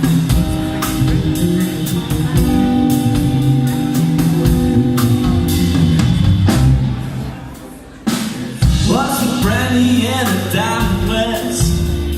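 A live band with drums, bass and guitar plays. About seven seconds in the music thins out and drops away, then the band comes back in and a singer starts.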